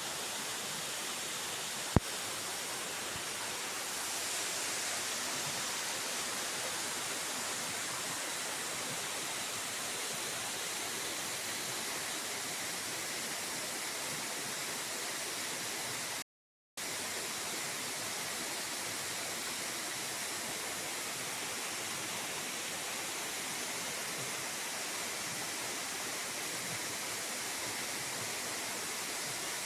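Waterfall: a steady rush of falling water, with one sharp click about two seconds in and a brief cut to silence about halfway through.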